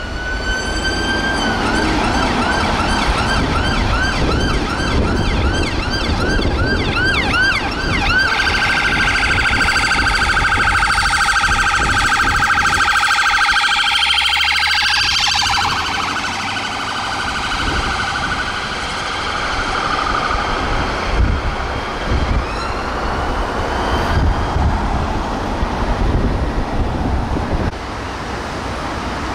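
Emergency vehicle siren sounding in traffic. It opens with a rising wail, then a yelp of about three sweeps a second, and switches about eight seconds in to a very fast warble that winds down around fifteen seconds in. Another rising wail comes around twenty-two seconds, over road traffic noise.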